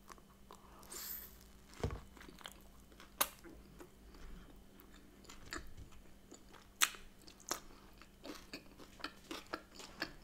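A person biting into and chewing a soft smoked salmon and cream cheese bagel: quiet mouth sounds with irregular clicks and smacks, a few of them sharper, and a brief hiss of breath about a second in.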